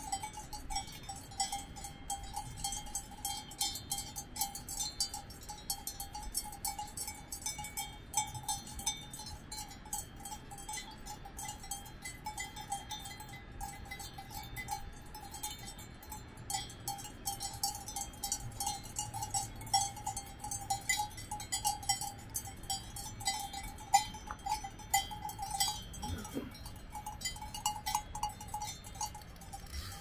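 Cowbells on grazing cows clanking irregularly, many overlapping clinks over a steady ringing tone.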